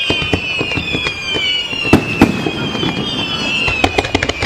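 Aerial fireworks going off in quick succession: many sharp bangs and crackles, the two loudest about two seconds in. Overlapping high whistles run under the bangs, each falling slowly in pitch.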